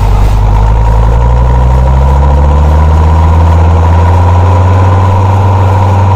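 Fiat 90-90 DT tractor's diesel engine running steadily at a loud, even level, its note shifting slightly in pitch during the first few seconds.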